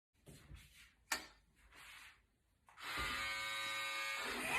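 A sharp click about a second in, then a steady electric buzz starting near three seconds in and holding one pitch, like a small motor running.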